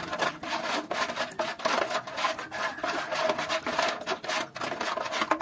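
Wooden stick stirring water in a large metal pot, scraping and knocking repeatedly against the pot's bottom and sides as baking soda and sodium acetate are dissolved for a mordant bath.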